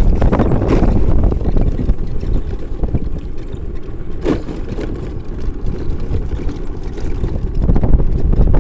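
Wind buffeting the microphone over the steady rumble of a moving vehicle on a road, louder at the start and again near the end.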